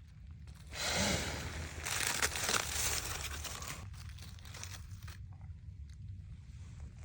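Crinkling and tearing handling noise in two bursts, a short one about a second in and a longer one from about two to three seconds in.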